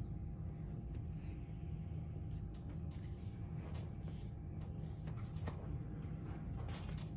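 Faint, repeated strokes of a soft-tissue scraping tool drawn over skin, coming more often in the second half, over a steady low hum.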